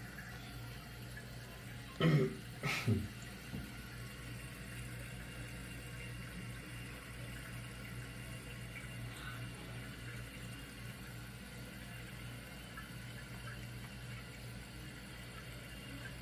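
Eljer Savoy toilet tank refilling: water runs in through the fill valve with a steady hiss. Two short, louder sounds falling in pitch come about two seconds in.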